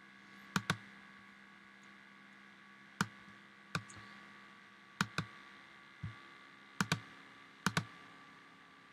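Computer mouse clicking: about ten sharp clicks at irregular intervals, several in quick pairs like double-clicks, over a faint steady hum.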